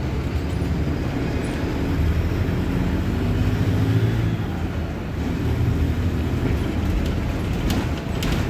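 Mercedes-Benz OF-1721 Bluetec 5 bus diesel engine running under way, getting louder for a few seconds, easing off about five seconds in, then pulling again. A few sharp clicks or rattles near the end.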